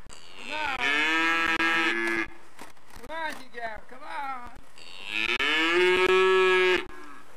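Hereford cattle mooing: two long, loud moos, one about half a second in and one about five seconds in, with a few shorter calls between them.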